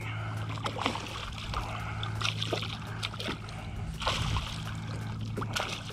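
Water splashing as a hooked Spanish mackerel thrashes at the surface beside a kayak, in a few short splashes, the biggest about four seconds in. A steady low hum runs underneath.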